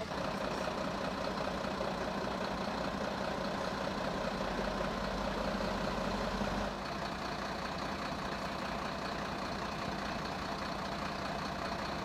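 Heavy diesel engines of fire trucks running steadily at low revs, a little quieter about seven seconds in.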